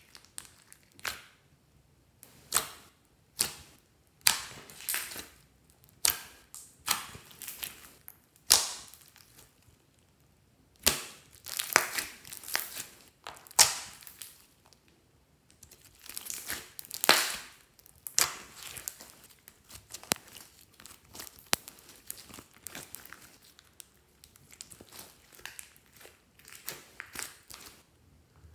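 Hands kneading, stretching and pressing soft, foamy slime, making irregular sticky crackles and squelches with short pauses between handfuls.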